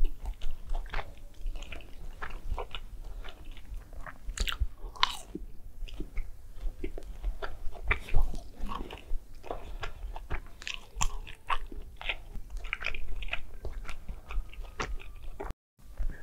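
Close-up mouth sounds of a person chewing and biting breaded fried nuggets: irregular wet chewing with small crunches, briefly cut off near the end.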